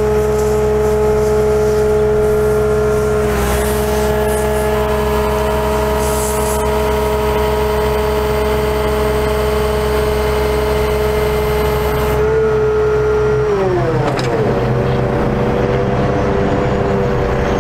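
Hi-Ranger TCX55 bucket truck's hydraulics whining steadily over its Cummins ISC diesel engine running at raised speed while the boom is operated. Near the end the whine slides down in pitch and settles at a lower steady note.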